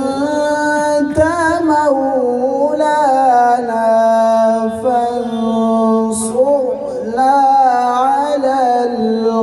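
A man reciting the Quran in melodic tilawat style into a microphone, drawing out long held, ornamented notes in nearly unbroken phrases.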